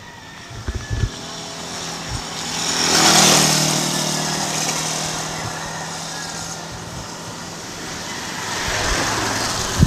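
Small motorcycle engine passing close by: its hum swells to a peak about three seconds in, then fades away. Another engine draws near toward the end.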